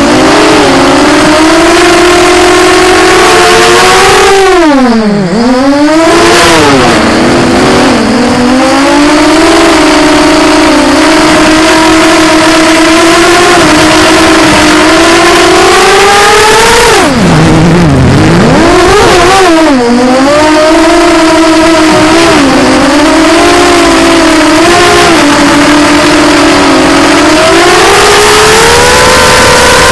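Electric motors and propellers of a small radio-controlled FPV model aircraft, heard from its onboard camera: a loud, steady whine that dips sharply in pitch and climbs back about five seconds in, dips again more deeply around seventeen to nineteen seconds in, and rises in pitch near the end.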